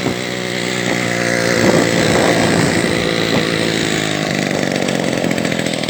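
Two-stroke single-cylinder Ural chainsaw engine powering a homemade trike, running steadily at a fairly even pitch.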